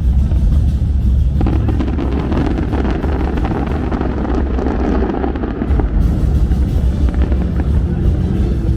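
Loud fireworks-show music with heavy bass, and fireworks bursting and crackling over it; a dense crackle sets in about a second and a half in.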